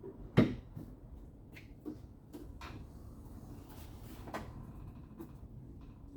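Knocks and clicks of hand work on a car's sheet-metal rear body panel as it is fitted: one sharp knock about half a second in, then a scatter of lighter taps and clicks.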